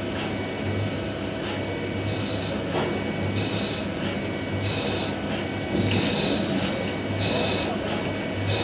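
CNC lathe cutting a thread on a small headed metal pin: starting about two seconds in, the threading tool makes repeated passes, each a short high-pitched hiss about every second and a quarter, over the steady hum of the spinning spindle.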